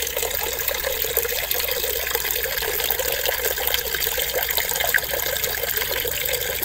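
Water running steadily, a continuous trickling and splashing from a small water feature.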